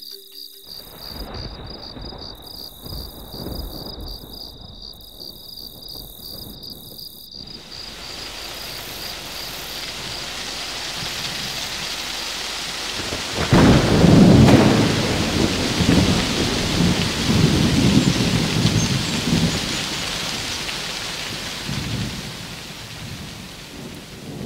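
Thunderstorm sound effects: a cricket's steady high chirring over low thunder rumbles for the first seven seconds or so, then rain hiss builds. A loud roll of thunder comes about halfway through, followed by further rumbles under steady rain.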